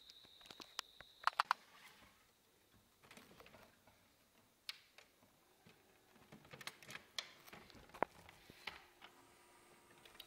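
Scattered faint clicks and taps, a few sharper knocks among them, with a steady high whine that cuts off about a second in.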